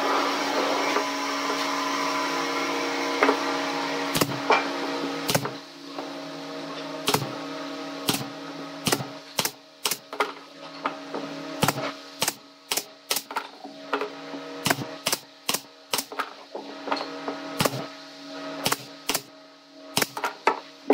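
Pneumatic brad nailer firing about two dozen sharp shots at uneven spacing, nailing a plywood panel onto a pine box, over a steady hum.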